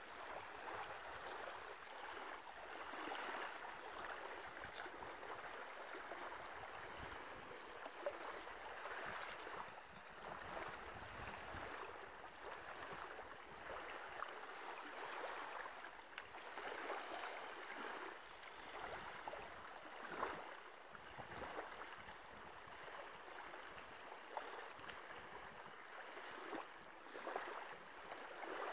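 Small waves lapping and washing on a sandy beach at the water's edge: a soft hiss that swells and fades every few seconds.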